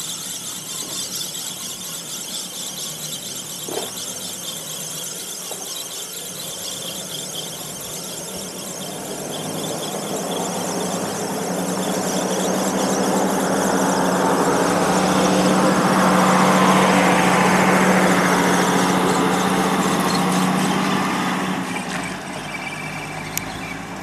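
Spinning reel on a feeder rod being cranked steadily, its gears whirring with a thin high whine, as a 60 g feeder is wound in after a long cast. Over the middle a louder rushing sound with a low hum swells up and fades away.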